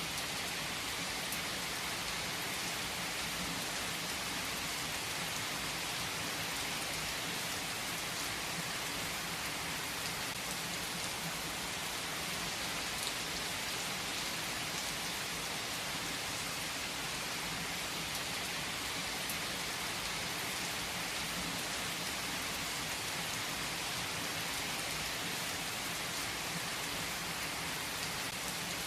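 Steady rain falling, an even hiss with a few faint single drop ticks.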